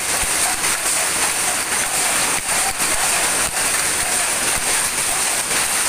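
Power looms running together in a weaving shed: a loud, dense, continuous mechanical clatter of many fast overlapping clicks.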